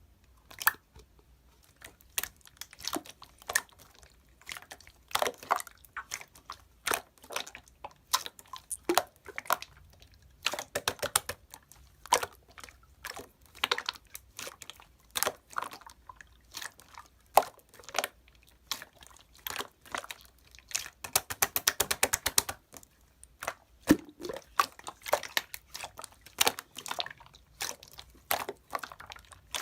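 Clear slime being squished and poked by hand, giving irregular wet clicks and pops, with a fast run of crackling clicks about two-thirds of the way through.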